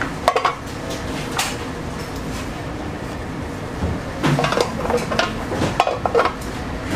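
Metal kitchenware clattering: a few sharp clinks and knocks, then a busier run of clatter near the end, over steady kitchen background noise.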